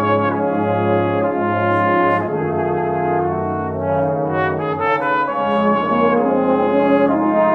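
Geneva Cardinal Professional cornet playing a slow melody of held notes that change every second or so, with lower sustained notes sounding beneath it.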